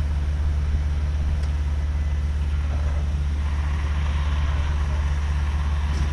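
A large engine running steadily at a constant speed, a deep, even drone. A faint hiss comes up over it about halfway through.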